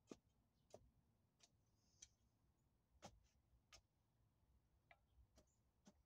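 Near silence with faint, sharp clicks at uneven spacing, about one every half second to one second.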